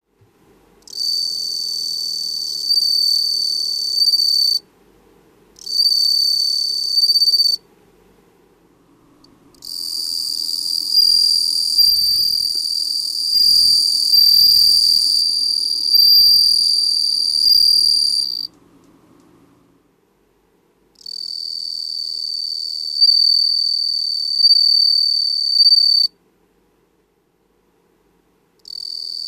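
Japanese bell cricket (suzumushi) singing: a high, clear ringing trill in five bouts lasting from under two to about nine seconds, each stopping abruptly, with short silent pauses between them.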